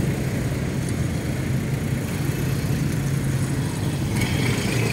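A motor vehicle engine idling steadily, a low even hum, with a faint higher hiss joining about four seconds in.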